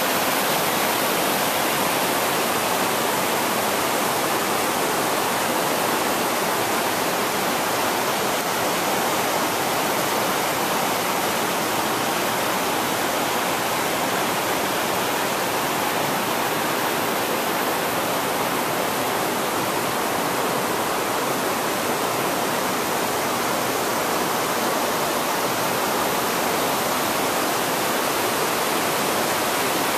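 Mountain brook cascading over boulders in a narrow rock gorge: a steady rush of water that holds the same level throughout.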